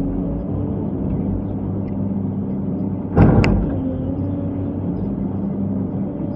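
Excavator diesel engine running steadily under the operator's controls, heard from inside the cab. About three seconds in there is one loud clank with a short metallic ring.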